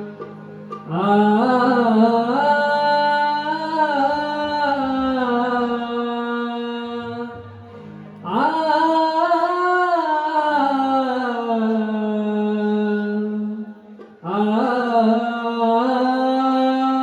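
Male singer's wordless alaap at the opening of a Marathi Ganesh vandana: three long, slowly gliding sung phrases over a steady low instrumental drone.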